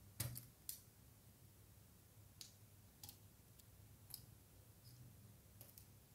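Scattered faint clicks as a plastic spudger pops the battery and ribbon-cable press-fit connectors off a Samsung Galaxy A-series phone's circuit board, the loudest two in the first second.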